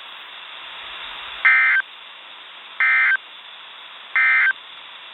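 Three short buzzy bursts of EAS SAME digital data, about a second and a third apart: the end-of-message code that closes a weather-radio alert. A steady radio hiss runs underneath.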